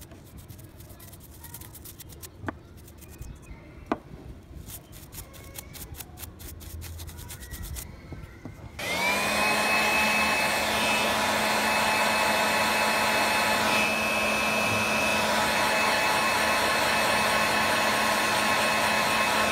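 A soft brush scrubbing a small circuit board gives faint scratching and ticks. About nine seconds in, a hand-held hot-air blower switches on, its motor pitch rising briefly before settling into a loud, steady blowing with a high whine as it dries the board.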